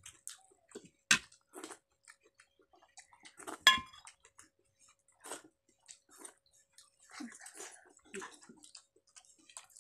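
Two people eating rice and dal by hand from ceramic plates: scattered wet chewing and lip-smacking clicks, with two sharper clinks about a second in and just before the four-second mark, the second ringing briefly.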